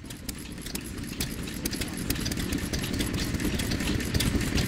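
ARCO Type GH 2 hp single-cylinder hit-and-miss farm engine running, a low engine rumble under a rapid, irregular clicking and clatter of its exposed valve gear and ignition parts, growing steadily louder.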